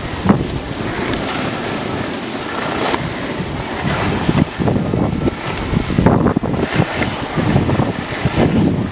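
Snow scraping and hissing under edges during a fast downhill run on a groomed slope, with wind rushing over the microphone. The noise swells and eases irregularly, every second or two.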